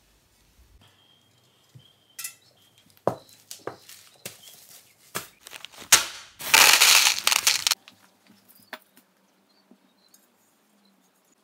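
Handling noises: scattered clicks and knocks, then a loud crinkling rustle of about a second as a plastic zip bag full of small metal parts is handled, with the parts clinking inside.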